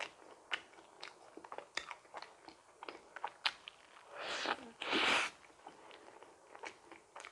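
A person chewing and biting a donut close to the microphone, with many small wet mouth clicks and smacks. Two louder noisy swells come about four and five seconds in.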